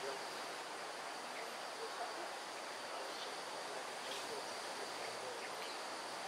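Forest ambience: a steady high insect drone, with a few faint short chirps scattered through it.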